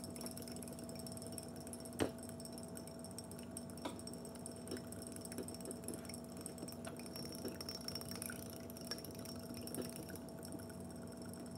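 Metal spoon stirring sugar into hot water in a glass mason jar, clinking and scraping against the glass at irregular intervals, with one sharper clink about two seconds in.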